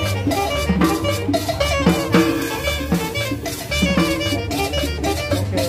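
Live band playing upbeat dance music: a drum kit and hand percussion keep a steady beat under a repeating bass line and a melody.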